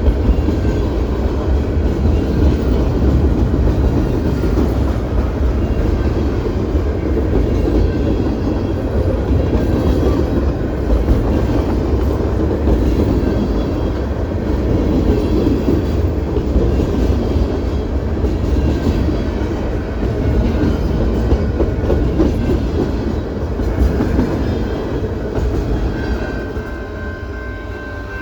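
CP Rail train rolling past, its cars rumbling and clacking steadily over the rails. Near the end the rumble eases and a steady high tone comes in.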